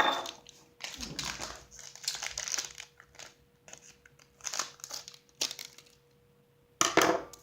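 Crinkling and crumpling in irregular bursts as something crinkly, such as packaging, is handled, with the loudest burst near the end.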